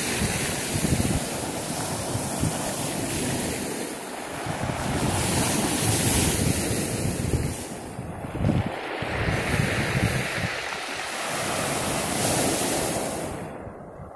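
Small sea waves breaking and washing up a pebble shingle beach, surging and falling back in swells a few seconds apart. Wind buffets the microphone with a low rumble.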